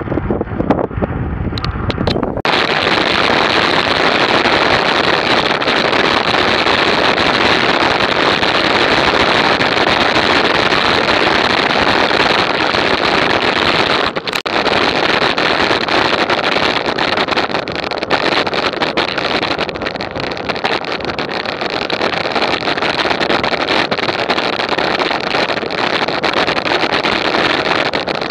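Steady loud rushing noise of travel at speed, wind over the action camera's microphone. It starts suddenly about two seconds in and drops out for a moment near the middle.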